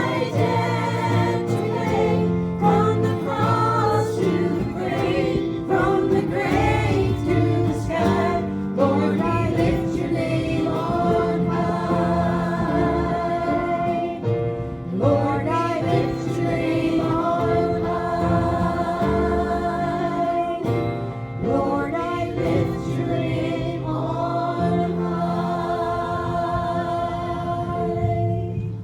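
Group of voices singing a slow gospel hymn with instrumental accompaniment, long notes held with vibrato, ending near the close.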